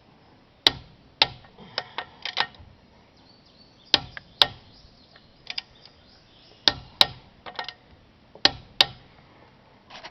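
Sharp metallic clicks and knocks from a wrench working the lug nuts on a truck's rear wheel. They come at irregular intervals, several in pairs about half a second apart.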